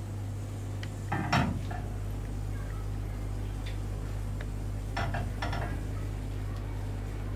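A frying pan clattering against a gas stove's grate as it is moved and shaken over the burner: one loud knock about a second in and two lighter ones around five seconds in, over a steady low hum.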